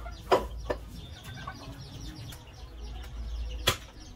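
Cleaver chopping goat meat on a wooden chopping stump: sharp chops, two close together near the start and one more about three and a half seconds in.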